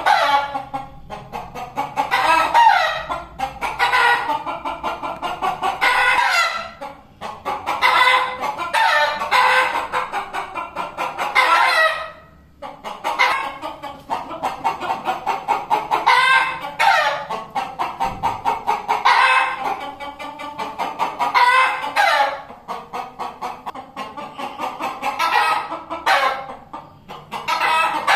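Fighting cocks crowing again and again, call after call, with clucking between the crows.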